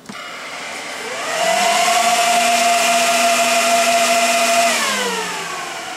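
Dell PowerEdge SC1425 1U server powering on: a click of the power button, then its cooling fans spin up into a loud rising whine about a second in, run steadily at full speed, and begin to wind down near the end. This is the fans' full-speed burst at power-on, before they slow down.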